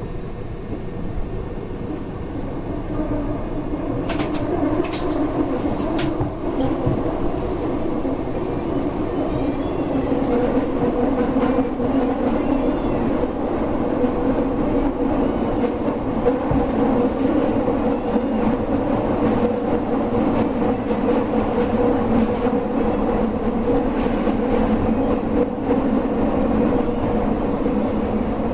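Subway train running through a tunnel, heard from inside the car: a steady rumble of wheels on rail with a steady hum. A few sharp clicks come about four to six seconds in, and the running noise grows louder about ten seconds in.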